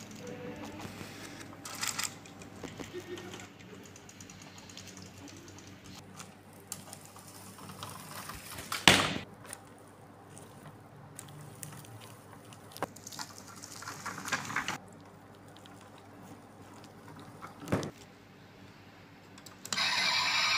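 Die-cast toy cars being handled on a styrofoam base: scattered small clicks, scrapes and rattles, with a sharp knock about nine seconds in. Near the end a louder, sustained sound starts as the toy's built-in light-and-sound feature is switched on.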